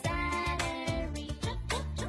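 Background music with a steady beat, a bass line and a sung melody.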